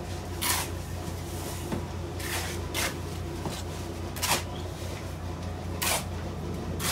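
Irregular knocks and scrapes from building work on a house site, about six sharp strokes spread unevenly over seven seconds, over a steady low hum.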